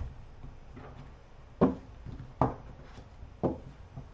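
Hard plastic magnetic card holders clacking together and against the table as they are gathered up and handled: three sharp clacks about a second apart.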